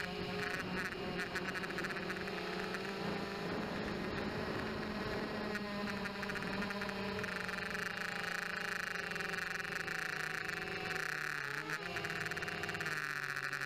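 Blade 200QX quadcopter's motors and propellers buzzing, picked up by the onboard keychain camera's microphone. The pitch shifts with throttle and drops briefly twice near the end as the quad eases off.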